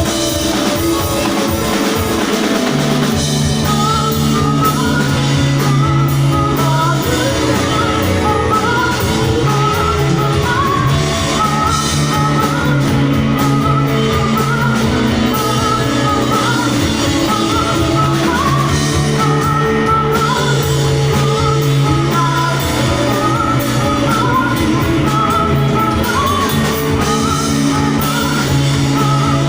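Live band performing a rock song: singing over guitars and a drum kit.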